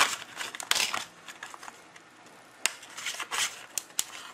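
Stiff plastic blister packaging of a camcorder battery being pried and torn open by hand: crackling and crinkling plastic with several sharp snaps, in irregular bursts.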